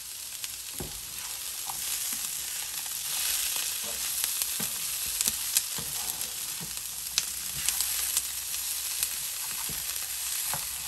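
Strips of bottle-gourd skin, broccoli and peas sizzling as they fry in a pan, with a spatula stirring them and clicking against the pan now and then.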